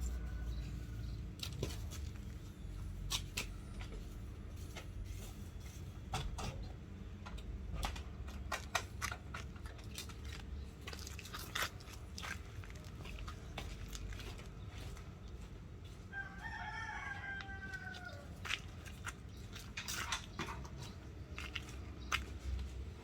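One long animal call, about two and a half seconds, falling in pitch, near the end, over scattered clicks and knocks of handling and movement.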